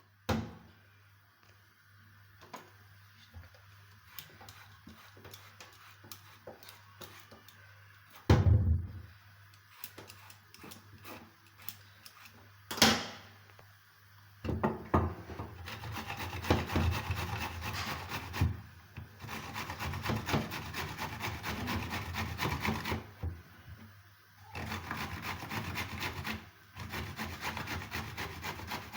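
Kitchen handling sounds: scattered light clicks and two sharp knocks, then steady scraping and rubbing in long bouts with brief pauses, as of a utensil or food being worked against a surface.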